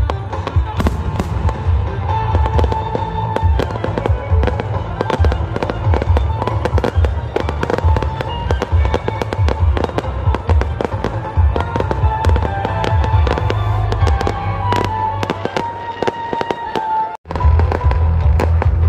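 An aerial fireworks display going off: a dense run of bangs and crackling bursts over a deep rumble, with music playing underneath. The sound cuts out for an instant near the end.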